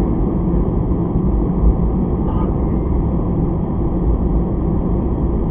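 Airbus A320 cabin noise while taxiing: a steady low rumble of the engines and the rolling airframe, heard from inside the passenger cabin.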